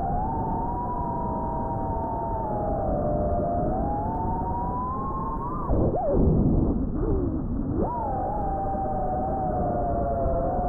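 FPV quadcopter's motors whining as several close pitches that glide slowly up and down with the throttle. About halfway through, the pitch drops sharply and the sound gets louder and rougher, then it climbs back to its earlier pitch about two seconds later.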